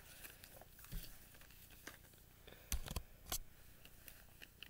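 Faint rustling of paper craft cutouts being handled on a picture book, with a few soft taps and knocks.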